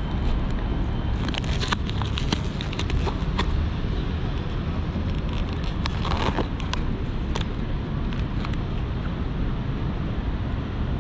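Clear plastic clamshell food containers being handled and opened by hand: the thin plastic crackles and clicks in two bursts, a couple of seconds each, as a paper band is pulled off and the lid is worked open. A steady low rumble runs underneath.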